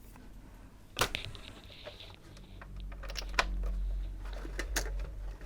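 A few sharp plastic clicks and knocks from handling the PS3 Super Slim console and its cables, with smaller ticks between them. A low steady hum comes in about halfway through.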